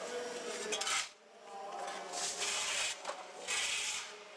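Steel shovels scraping into a pile of damp sand on a concrete floor, three scoops a second or so apart.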